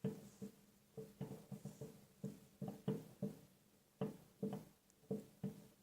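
Distant fireworks going off, heard muffled from indoors as a quick irregular run of faint pops and bangs.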